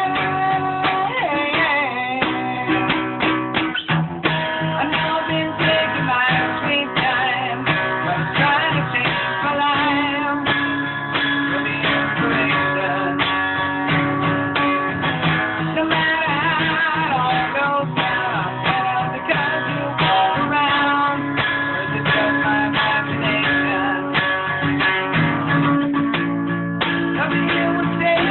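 Guitar played through a song demo, chords and notes ringing without a break, the guitar probably slightly out of tune by the player's own account. The recording is low-fidelity.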